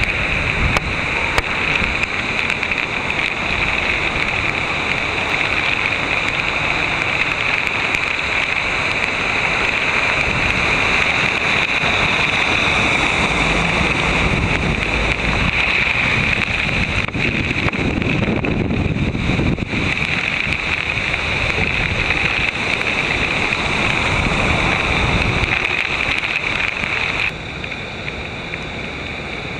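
Heavy rain and gusting wind buffeting the microphone, with the wash of cars driving through deep floodwater on the street. Near the end the sound drops to a quieter, steadier hiss of rain and water.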